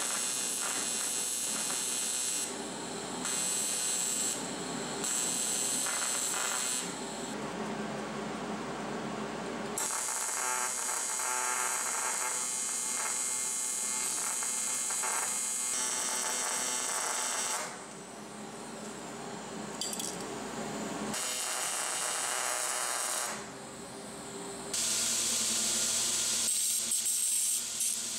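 AC TIG welding arc on thin aluminum tube buzzing and hissing in several passes of a few seconds each, stopping and restarting between them. Near the end a belt grinder runs as the welded handle is ground against its belt.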